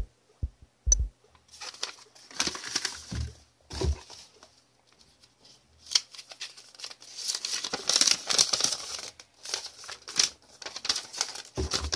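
Paper rustling and crinkling as a folded paper instruction leaflet is handled and unfolded, coming in irregular bursts with a short pause, busiest and loudest from about halfway on.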